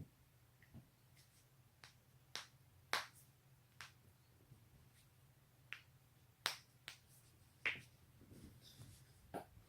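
Joints cracking: a series of about ten sharp, separate pops at irregular intervals, the loudest about three seconds in and about six and a half seconds in.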